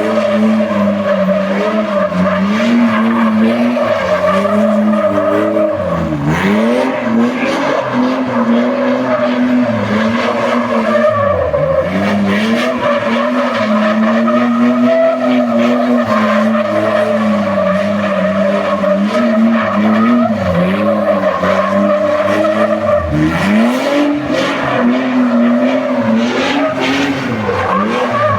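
A loud humming drone in a garage, its pitch wavering and sagging low every few seconds before climbing back.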